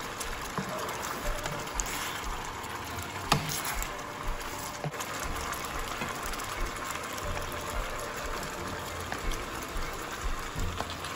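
Sweet-and-sour sauce boiling hard in a frying pan: a steady bubbling, crackling hiss. A single sharp tap sounds about three seconds in.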